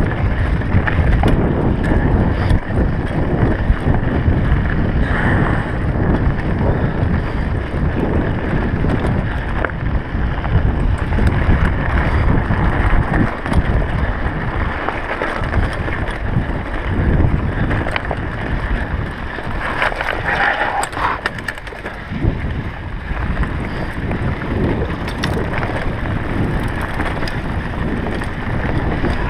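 Mountain bike ridden over a rocky dirt trail: tyres crunching on gravel and the bike rattling with frequent clicks over the bumps, under steady wind buffeting the microphone.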